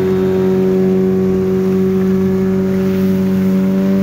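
A small fishing boat's motor running at cruising speed, holding a steady pitch, over a hiss of wind and rushing water.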